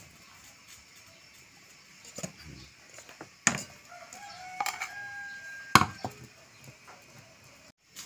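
A drawn-out bird call of about a second and a half on a steady pitch, over faint background hiss. Two sharp knocks, one about three and a half seconds in and a louder one near six seconds.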